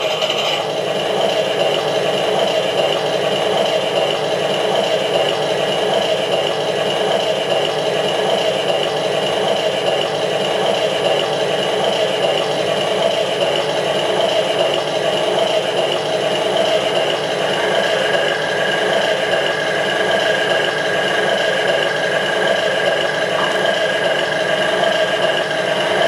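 Simulated aircraft engine sound from a Robbe sound module played through a speaker inside an RC model Beaver's fuselage, running steadily. A faint thin whine joins about two-thirds of the way in.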